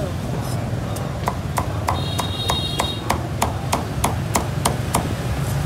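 Steel cleaver chopping roast pork on a thick round wooden chopping block, dicing the meat with even strikes about three a second.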